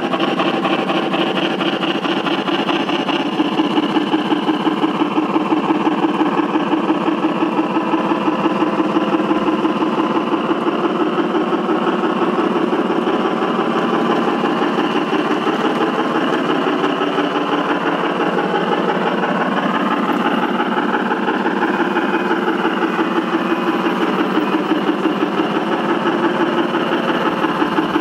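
Gauge 1 model of a BR 44 steam locomotive running along the track, giving a fast, even rhythmic beat over a steady mechanical running noise. Its pitch briefly sweeps up and down about two-thirds of the way through.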